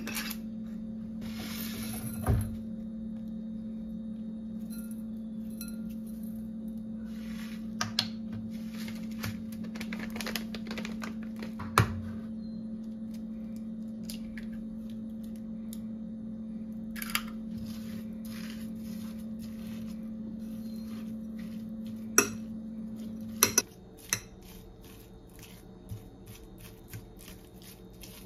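Dishes and cutlery clinking and knocking in scattered, irregular strikes over a steady hum. The hum cuts off abruptly near the end.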